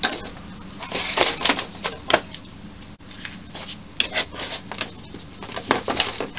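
Small metal lathe parts and tools being handled on a workbench: a run of sharp clicks and clinks in loose, irregular clusters.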